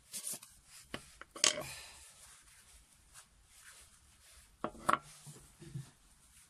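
Hands handling a tub of Yorkshire Grit abrasive paste and a paper towel: a few sharp clicks and knocks, the loudest about a second and a half in and another pair near five seconds, with soft rubbing and rustling between.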